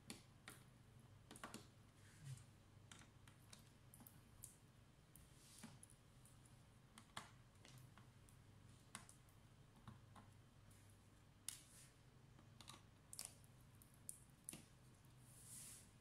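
Faint, irregular clicks of a small screwdriver working the bottom-panel screws of a Dell Inspiron 3511 laptop, about one click a second, over a low steady hum.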